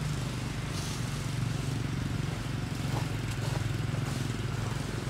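A steady low engine hum running without a break, with a few faint clicks over it.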